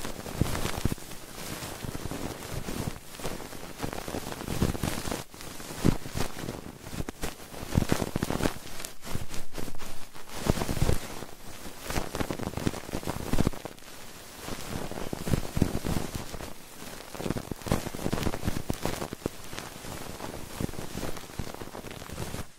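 Close, dense crackling and rustling with irregular scratchy pops throughout: ASMR trigger sounds worked right at a binaural microphone's ears.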